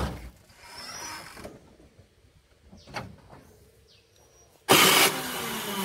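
Quiet at first, with a knock and a faint click. About three-quarters of the way through, a small truck's exhaust fitted with a 'srigala' (wolf) muffler comes in suddenly and loudly, its pitch falling as the revs drop.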